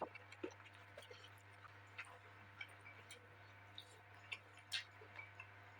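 Faint eating sounds: scattered soft clicks and smacks, the loudest near the end, over a steady low electrical hum.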